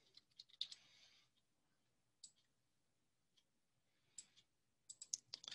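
Faint, scattered clicks of a computer mouse and keyboard: a few in the first second, one about two seconds in, a pair at about four seconds and a quick run of clicks near the end, with near silence between.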